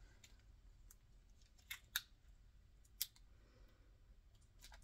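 Near silence: room tone with three faint short clicks, about two and three seconds in.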